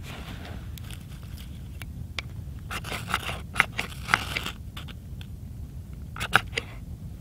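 Deering EDC Bushcraft knife carving curled shavings off a dry stick: short scraping strokes of the blade through the wood, a run of them about three seconds in and a few more near the end.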